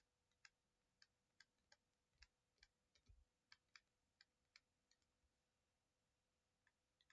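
Near silence with about a dozen faint, irregular light clicks over the first five seconds, made while handwriting on a screen, over a faint steady hum.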